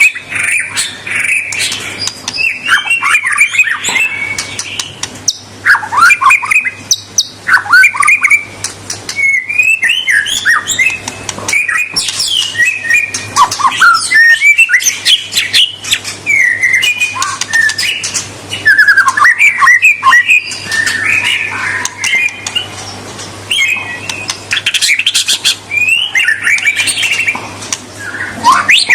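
White-rumped shama singing continuously: a rapid, varied song of loud whistled glides mixed with harsh chattering notes, with hardly a pause.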